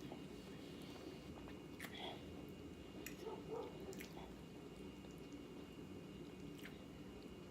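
Faint chewing of a mouthful of chili beans, with a few soft clicks spread through it.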